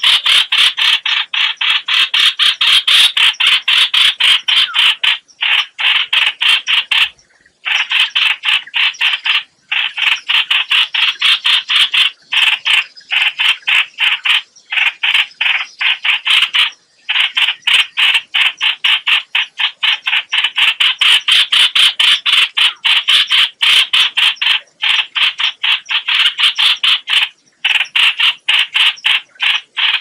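Bulbul distress calls used as a trapping lure: a fast run of short, harsh notes, several a second, broken by a few brief pauses.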